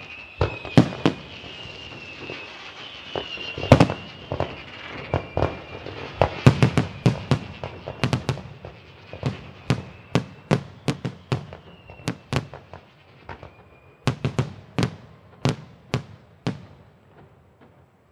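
Fireworks going off in a rapid, irregular series of sharp bangs, several to a second at the busiest. The bangs stop near the end. A high, wavering whistle runs through the first few seconds and comes back briefly later.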